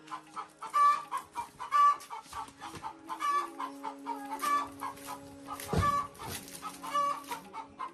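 Chickens clucking, short calls repeating about once a second, with a single knock about six seconds in.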